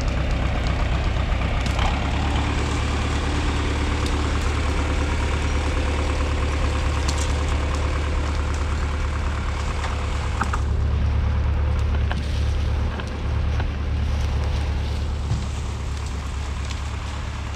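Farm tractor's engine running steadily under load as it skids a dead log out through the brush, a low even drone. A few short sharp snaps sound over it partway through.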